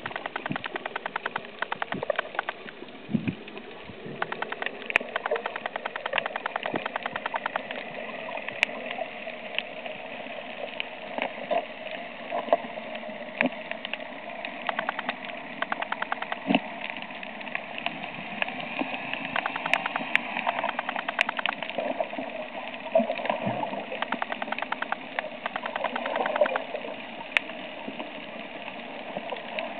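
Underwater sound picked up by a submerged camera: a steady engine-like drone with many sharp clicks and crackles, thickest in the first few seconds and scattered after.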